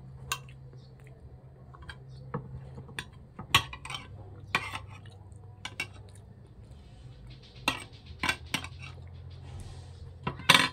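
Spoon and fork clinking and scraping against a plate while eating, in irregular short clinks, the loudest one near the end.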